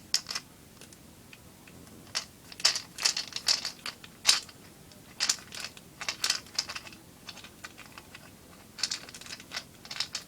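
Scattered sharp clicks and taps in short clusters: a screwdriver driving small screws into an airsoft AK74 magazine as it is reassembled.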